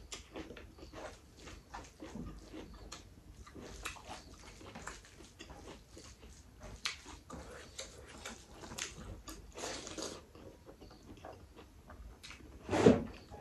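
Close-miked chewing and wet mouth sounds of a person eating with her fingers: many small smacks and clicks. One short, louder mouth sound comes near the end.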